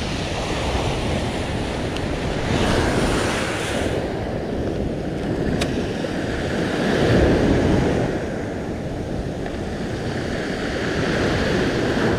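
Sea surf washing with wind buffeting the microphone, the wash swelling twice. One sharp click sounds about midway.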